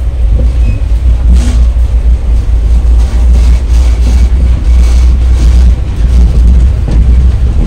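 Steady low rumble of a moving passenger train heard from inside the coach, loud and continuous, with a few faint ticks.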